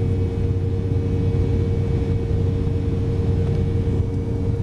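Steady in-cabin drone of an Embraer 190 airliner in flight, heard from a seat beside the wing: its General Electric CF34 jet engines and the rush of air, with a constant low hum and a steady higher tone.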